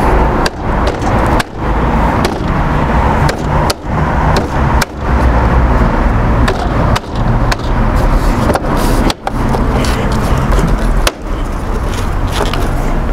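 Repeated sharp clicks and knocks of the Ford Fiesta's plastic front grille being handled and pressed onto its clips, over a loud, continuous rumbling noise.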